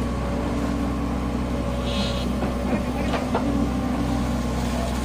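Komatsu hydraulic excavator's diesel engine running steadily as the boom and arm dig, with a brief high hiss about two seconds in and a few short knocks a second later.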